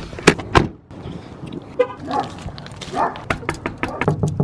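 A quick run of sharp knocks and clicks, loudest in the first second, with a few short pitched calls about two and three seconds in.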